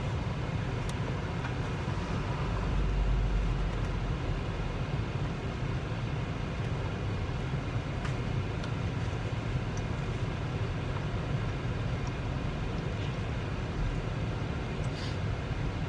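Steady low rumble inside a car's cabin, swelling briefly a few seconds in, with a few faint clicks of chewing.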